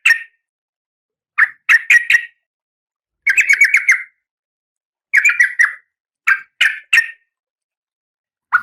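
Female oriental magpie-robin (kacer) giving short harsh chattering calls in about five bursts of a few rapid notes, each burst under a second with a second or so of silence between. It is presented as the call of a female in breeding condition calling a male.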